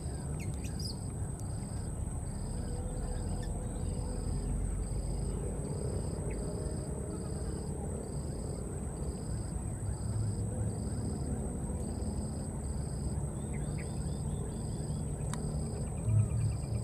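Insects chirping in the undergrowth: a steady high-pitched drone with a short chirp repeating a little more than once a second, over a low rumbling background. A single thump comes near the end.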